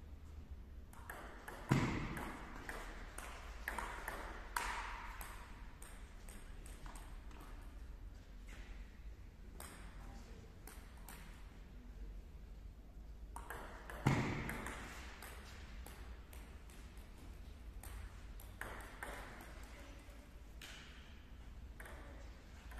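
Table tennis ball clicking back and forth off the paddles and the table during rallies, in an echoing gym, with two louder thuds, about two seconds in and again about fourteen seconds in.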